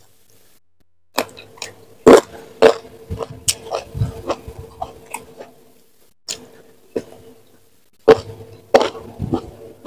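Close-miked chewing of raw leunca berries and eating with the fingers: sharp crunches and wet mouth sounds come in two spells, with a short pause between them.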